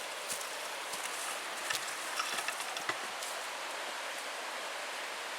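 Steady rushing of the gorge's stream, an even hiss of running water, with a few short light clicks and crunches in the first three seconds.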